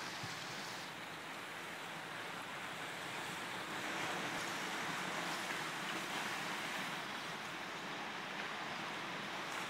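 Steady rushing hiss of a river in spring ice breakup, water and broken ice floes moving downstream together, growing a little louder about four seconds in.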